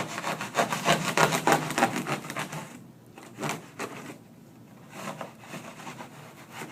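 Rapid back-and-forth sawing strokes, about five a second, as duct board is cut by hand. They stop after about two and a half seconds, and a few scattered scrapes follow.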